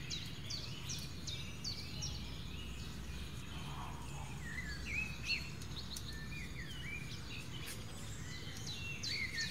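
Small birds chirping outdoors: quick runs of short, high chirps, with lower rising-and-falling calls in the middle, over a steady low rumble.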